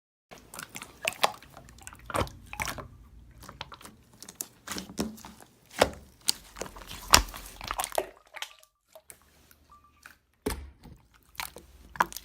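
Irregular close-up clicks and crackles, like small objects being handled near the microphone, with a quieter pause about two-thirds of the way through.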